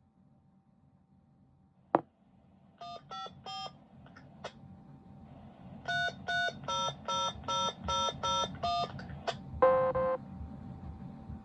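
DTMF tones keyed from a handheld radio's keypad and heard through a radio speaker, sent to command the siren controller to play a pre-recorded voice message. There is a click, then three short tones, then a quick run of about ten tones, then one longer, lower beep near the end.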